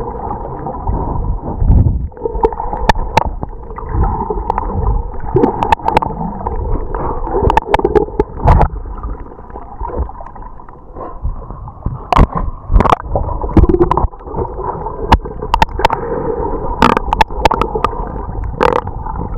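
Muffled underwater water noise picked up by a submerged camera, with water gurgling and sloshing around it and sharp clicks and knocks coming often and irregularly.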